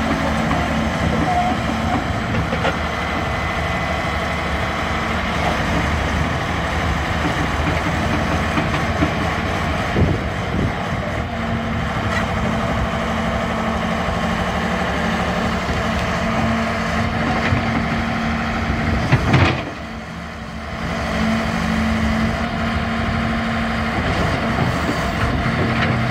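Diesel engine of a 1985 Liebherr 932 tracked excavator running steadily at idle, with a couple of short knocks about ten and nineteen seconds in and a brief dip in level just after the second.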